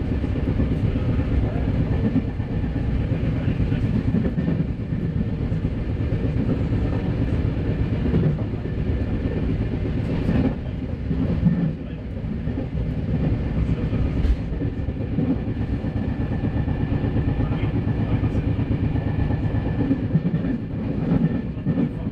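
Running noise of an RER B electric train at speed, heard from inside the carriage: a steady low rumble of wheels on the rails, with a few sharp knocks along the way.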